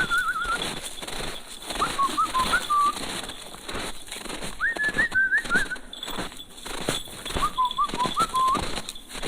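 Whistling in short warbling phrases of quick rising and falling notes, four phrases a couple of seconds apart, over the crunch of footsteps in snow.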